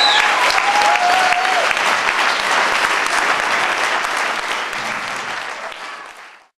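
Audience applauding, with a few cheers in the first second or two. The applause fades out and cuts off just before the end.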